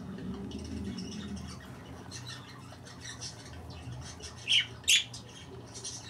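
Pet budgerigars chattering with short high chirps, then two loud squawks that fall in pitch, one right after the other, about four and a half seconds in.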